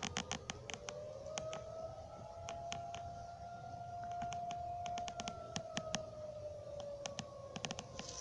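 Dual-tone outdoor tornado warning siren sounding two pitches at once; the pitch rises over the first two seconds, holds, then slowly falls. Irregular sharp clicks crackle over it throughout.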